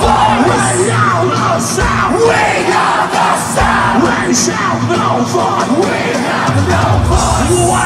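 Post-hardcore rock band playing live at full volume: distorted guitars, bass and drums with yelled vocals, heard from inside the crowd.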